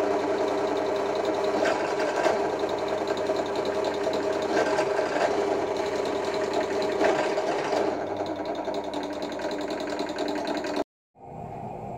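Drill press running, its bit drilling into a small metal part clamped to the table: a steady motor-and-spindle hum mixed with cutting noise. It cuts off abruptly near the end, and a fainter steady hum follows.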